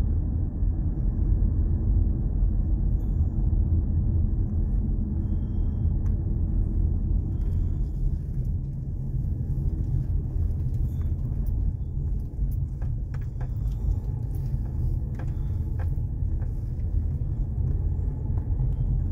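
Steady low rumble of a car driving slowly on a paved road, heard from inside the cabin: engine and tyre noise. A few faint light ticks come in the second half.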